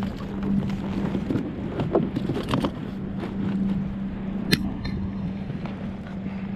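Steady hum of a motorboat engine running nearby, over wind and water noise, with small scattered knocks and one sharp click about four and a half seconds in.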